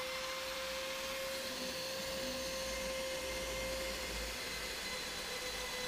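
Electric drill running steadily with a cobalt bit boring into a seized steel bolt, its motor giving a steady whine that holds one pitch.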